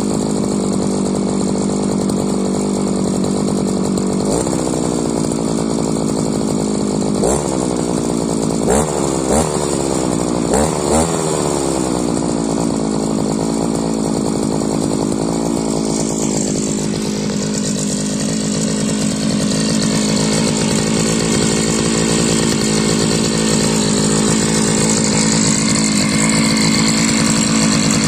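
Chinese two-stroke brushcutter engine running on a 43 cc cylinder from a Champion machine, through the exhaust from its original 52 cc cylinder. It holds a steady note, is blipped quickly on the throttle a few times about 7 to 11 seconds in, and changes its engine note about 16 seconds in.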